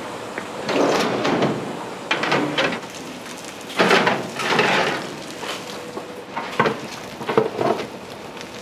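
Commercial kitchen work noises: five or so short bursts of scraping and rustling, the loudest about four seconds in, over a faint steady hum.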